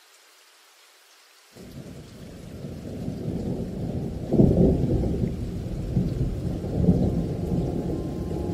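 Rolling thunder rumble that starts suddenly about a second and a half in and builds, with louder rolls around the middle and again later.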